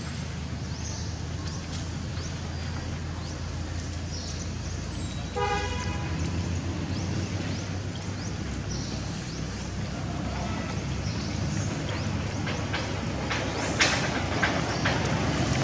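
Steady low drone of motor traffic, with a short horn toot about five seconds in and a sharp click near the end.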